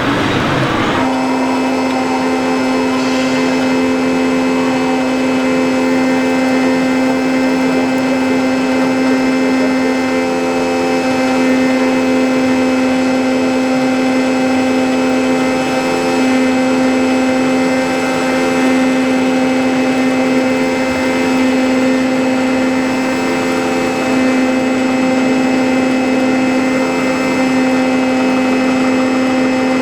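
Steady electric hum of a 1/14-scale RC construction machine running, holding one constant pitch throughout with a slight wavering in level.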